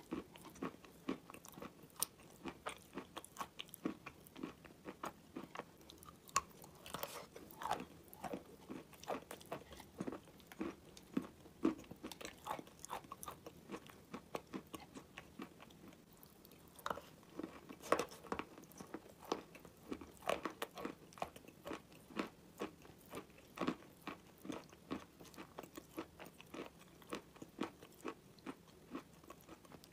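Chalk being chewed close to the microphone: a dense run of wet crunches and mouth clicks, thinning briefly a little past the middle.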